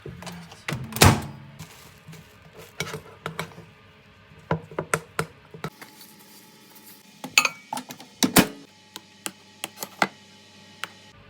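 Kitchen utensils and dishes knocking and clinking: an irregular series of sharp knocks and clicks, the loudest about a second in and another cluster near the end.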